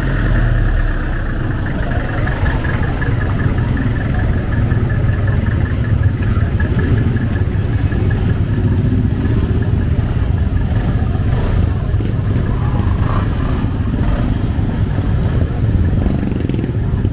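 Street traffic with motor vehicle engines running and passing close by, a steady low rumble with some clatter.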